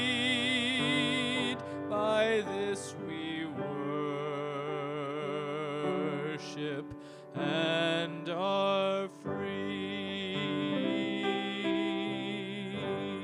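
A man singing a slow hymn with vibrato, holding long notes, accompanied by grand piano.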